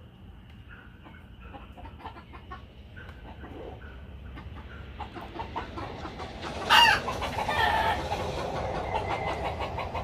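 Domestic chickens clucking, with one loud squawk about seven seconds in.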